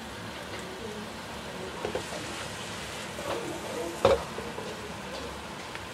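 Stir-fry of garlic chive flowers and squid sizzling in a nonstick wok as a spatula turns it, scraping and knocking on the pan, the loudest knock about four seconds in.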